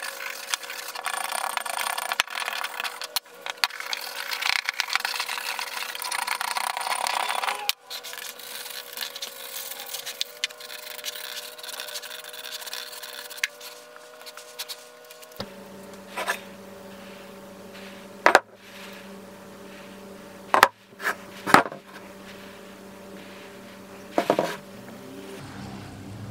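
Scrubbing and rubbing caked grime off the metal housings of an old bench grinder, with a steady hum underneath. The scrubbing fades out in the second half, and a few sharp knocks follow as metal grinder parts are set down on a wooden bench.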